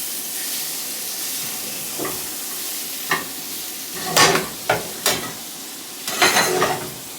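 Shrimp sizzling in a frying pan, with a cooking utensil scraping and clinking against the pan several times, loudest about four seconds in and again about six seconds in.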